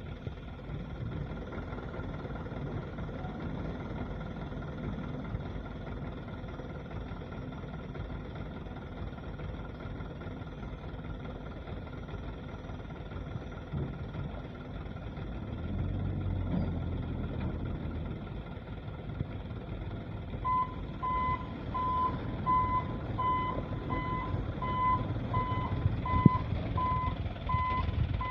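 Dump truck engines running with a low, steady rumble; about twenty seconds in, a truck's reversing alarm starts beeping, a little faster than once a second.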